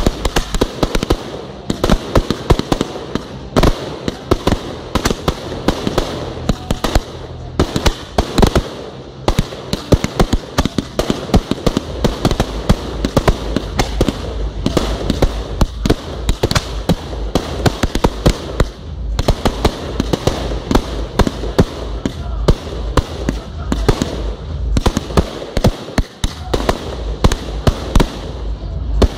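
Aerial fireworks firing in a rapid, continuous barrage: sharp bangs and bursts several times a second, one after another without a pause.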